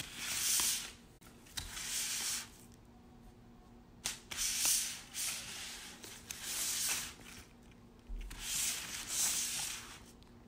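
A cheeseburger wrapper crinkling and rustling as a cat paws and drags it across a table, in about five bursts a second or so long with short pauses between.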